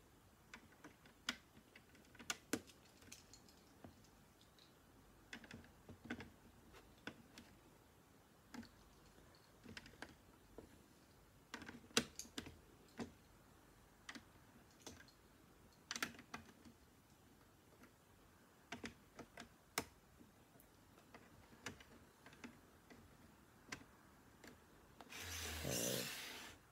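Plastic Lego bricks being handled and pressed together: irregular sharp clicks and light taps, with a louder rustle near the end.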